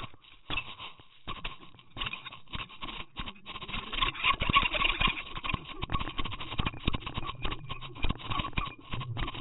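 Underwater noise from a camera towed on a trolling line: water rushing over the housing, with dense, irregular clicks and knocks and a steady high whine underneath.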